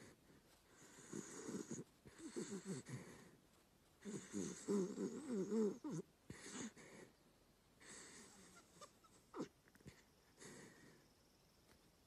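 Sleeping dachshund snoring: a series of snoring breaths about every two seconds, the loudest about four to six seconds in.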